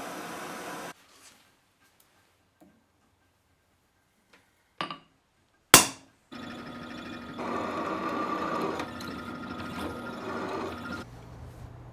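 Two sharp knocks on metal or wood, then a power tool runs steadily for about five seconds and stops.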